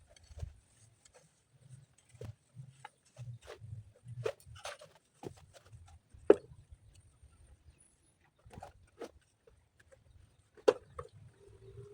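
Scattered, irregular knocks and clacks of stones and hand tools being handled during stone-laying work, with two sharper knocks, one about six seconds in and one near the end.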